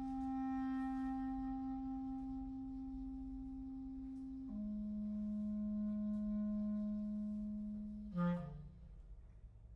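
Solo clarinet holding a long sustained low note, then moving to a lower one held for several seconds. About eight seconds in comes a short louder flurry of notes, after which the playing drops away.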